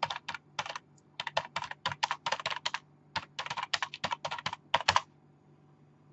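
Typing on a computer keyboard in quick runs of keystrokes with short pauses between them, stopping about five seconds in.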